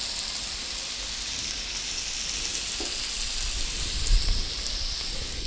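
Chopped green tomatoes, onion and par-boiled elephant-foot yam sizzling in hot oil in a kadai: a steady frying hiss, with a few soft knocks about four seconds in.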